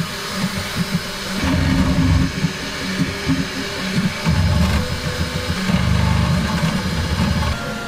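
Bambu Lab X1 Carbon 3D printer printing, its stepper motors humming in low tones that change pitch every fraction of a second as the toolhead moves.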